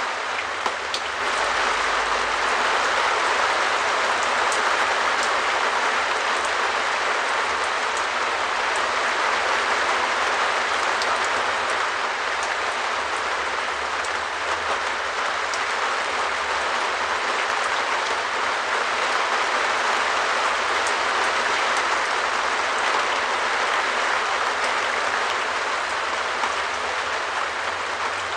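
Rain falling steadily on a shed roof: a dense, even wash of drops with scattered sharper single drop hits.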